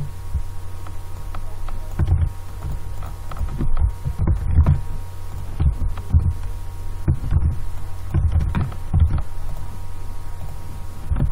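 Steady low electrical hum on the microphone, with about a dozen irregular dull thumps from keystrokes and mouse clicks carried into the microphone while code is edited.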